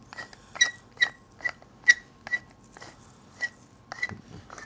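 Wooden pepper mill being twisted to grind pepper, giving a short squeaky click with each turn, about two a second, thinning out to a few scattered clicks in the last two seconds.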